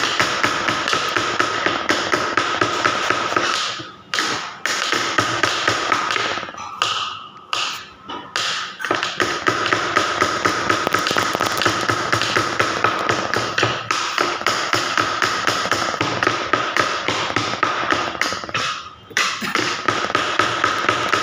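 Kitchen knife chopping rapidly on a cutting board, a fast unbroken run of taps that stops briefly three times.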